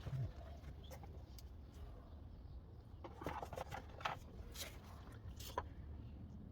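Faint, scattered clicks and light rubbing as brake pads and small parts are handled, over a low steady hum.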